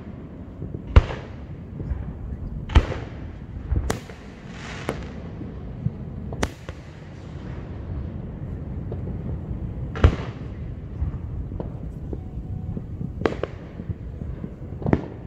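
Aerial fireworks shells bursting overhead: about eight sharp bangs at uneven intervals, each trailing off in echo, over a steady low rumble. The loudest bangs come about a second in and again about ten seconds in, with a longer lull before the second.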